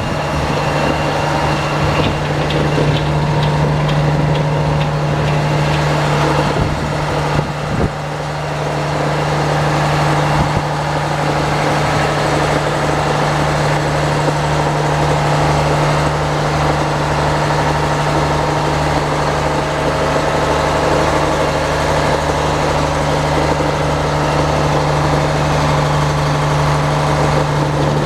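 Sawmill engine running steadily with an even low pulse, while the log carriage runs along its track. Several sharp knocks and clanks come in the first ten seconds or so.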